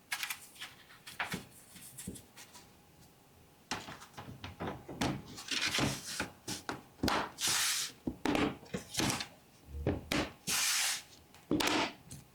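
Plastic bottom cover of an ASUS TUF A16 laptop being handled and pressed back into place: an irregular run of clicks and knocks with several longer rubbing scrapes as the panel's clips are seated.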